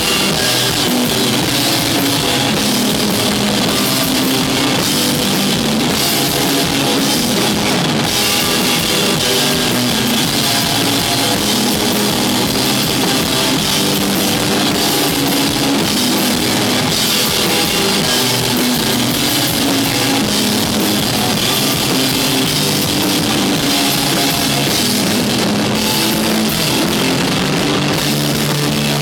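Rock band playing live with no vocals: electric guitar and drum kit, loud and unbroken.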